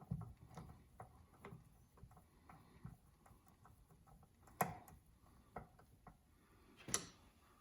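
Faint, irregular small clicks and taps of hand tools and screws as a KitchenAid stand mixer is screwed back together, with two sharper clicks about four and a half and seven seconds in.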